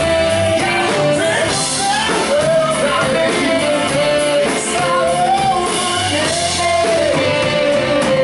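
Live blues-rock band playing: electric guitar, bass and drum kit, with a man singing lead into the microphone.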